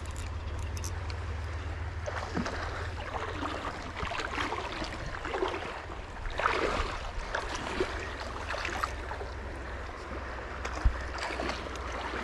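Flowing river water with a steady low wind rumble on the microphone, broken by irregular splashing as a hooked rainbow trout is fought and reeled in close.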